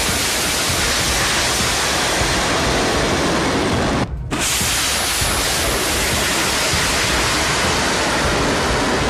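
Missile rocket motors roaring at launch: a steady, dense rushing noise. It breaks off for a moment about four seconds in, then a second launch carries on.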